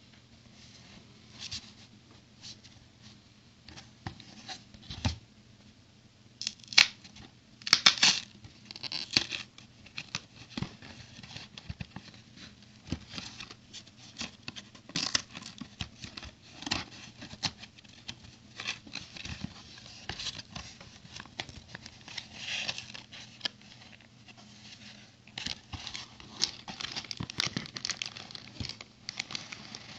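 Hands opening and handling the packaging of a toy brick set: scattered clicks, rustles and crinkles of cardboard and plastic, with a few sharper clicks about seven and eight seconds in and denser rustling near the end.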